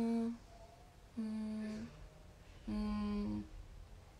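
A girl's thoughtful closed-mouth "mmm" hums, three short ones each held on one steady pitch, while she tries to remember something.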